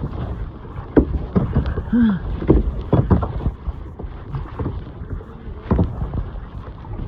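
Kayak paddle strokes splashing and knocking in ocean water at an irregular pace, over a steady low rumble of wind on the microphone.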